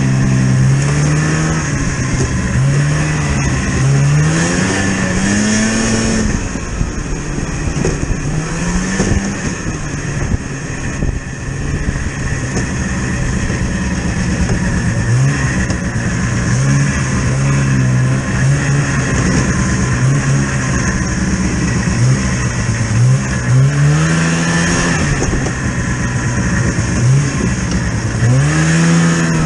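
A motor vehicle's engine running under load, its pitch repeatedly rising and falling as it speeds up and eases off.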